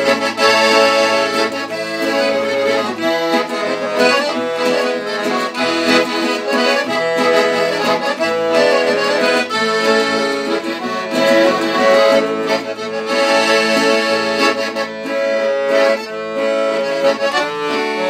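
Piano accordion playing a traditional tune in sustained chords and melody, accompanied by a strummed acoustic guitar.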